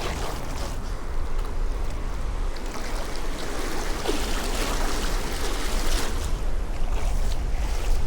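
Gulf surf breaking and washing on the beach, with wind buffeting the microphone in a steady low rumble.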